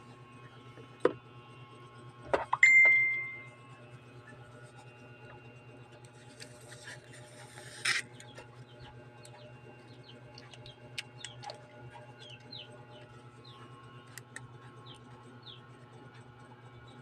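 A steady low hum, with a sharp click about a second in. A louder clack about two seconds in is followed by a short ringing tone that fades within a second. A brief hiss ends in a click near eight seconds. From about ten seconds on, a small bird chirps repeatedly in the background, short falling chirps about twice a second.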